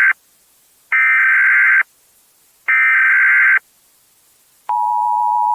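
Emergency alert broadcast tones. Buzzy electronic data bursts, each about a second long with about a second of silence between them (the end of one, then two more), in the manner of an Emergency Alert System digital header. Then, about 4.7 seconds in, a steady two-note attention tone starts.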